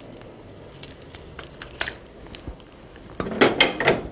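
Ghee with browned cumin seeds and freshly added asafoetida crackling and popping in a small metal ladle over the flame, with scattered light ticks. Metal clinks of the ladle and utensils, a single clink a little before halfway and a louder clatter near the end.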